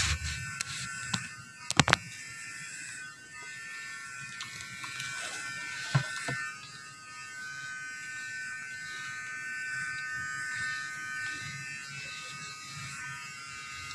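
Electric hair clippers buzzing steadily throughout. A few sharp knocks in the first two seconds and another about six seconds in.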